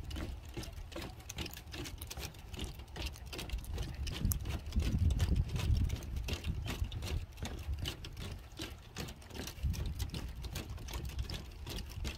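Rapid, irregular clicking and tapping, many light ticks a second, over a steady low rumble.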